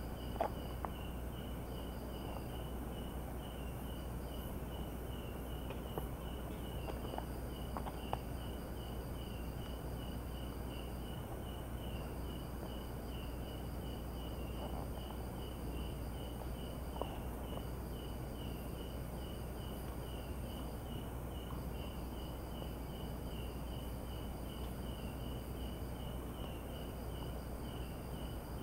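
Night insects, crickets, chirping: a regular pulsing chirp about three times a second, a higher trill coming and going in spells of a second or two, and a faint steady high tone, with a few faint ticks now and then.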